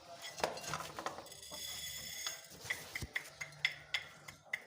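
Chickens pecking at scattered millet and wheat grain, with the grain rattling: a run of sharp, irregular clicks and taps.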